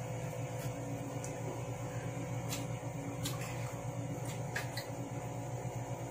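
A steady low mechanical hum from a room appliance, with a few short sharp clicks of someone chewing a mouthful of noodles.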